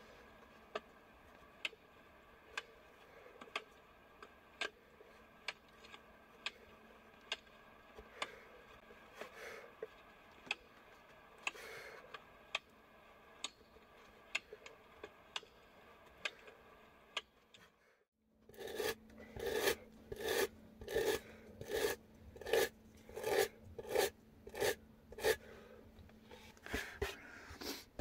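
A woodcarving chisel scraping and cutting into a wooden board in short strokes, about one a second. After a brief break, a run of louder, quicker strokes follows, about two a second.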